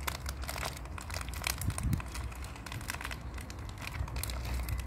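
Plastic wrapping crinkling and crackling in irregular bursts as a bag is handled and pulled out of a plush toy.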